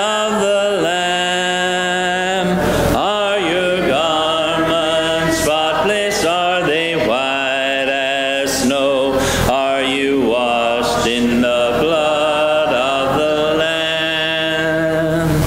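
Congregation singing a hymn a cappella, many voices together, with long held notes.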